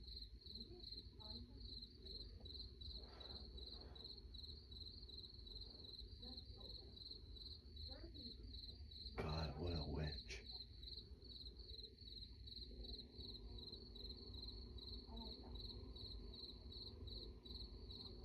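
Crickets chirping steadily at night, an even run of high-pitched pulses over a faint low hum. A brief, louder noise breaks in about halfway through.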